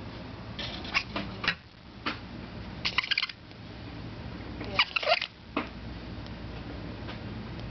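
Pet fancy rat making several short, sharp, sneeze-like bursts, spaced irregularly, the loudest about five seconds in. It is an odd noise that her owners cannot place as hiccups, sneezes or coughing.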